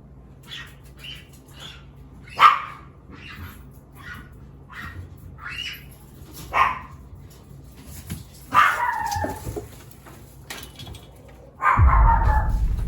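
Wild animals giving a series of short, sharp yips and cries, with a longer call falling in pitch a little past halfway. Near the end a loud, longer noisy burst with a deep rumble comes in.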